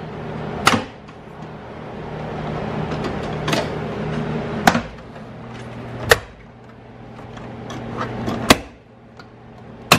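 Sharp plastic clicks and knocks, about five of them, with rustling and scraping in between, as hands pull and work the plastic side trim panel of a car seat by its rusty seat rail.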